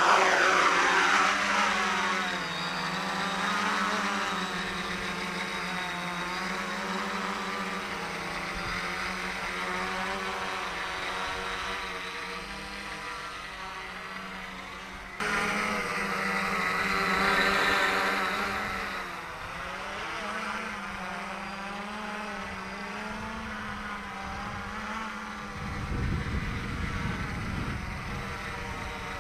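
Dart 450 quadcopter's four electric motors and propellers buzzing in flight, the pitch wavering up and down as the throttle is worked. A low rumble joins near the end.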